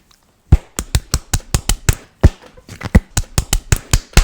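A quick, uneven run of sharp clicks or taps, about six a second, starting about half a second in.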